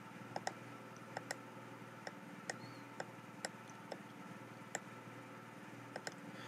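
Faint computer mouse clicks, about a dozen at irregular intervals, over a low steady room hum.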